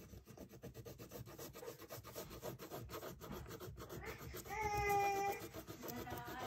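Wax crayon rubbing on paper in quick back-and-forth coloring strokes. About four and a half seconds in, a high-pitched cry lasting about a second sounds over the scratching.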